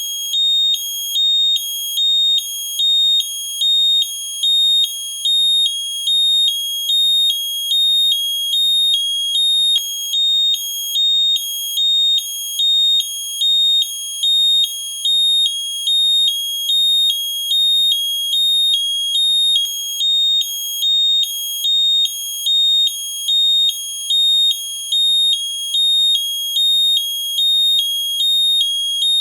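Garrison gas leak detector alarm sounding: a shrill electronic tone that alternates steadily between two pitches, about one high-low cycle a second, repeating without a break.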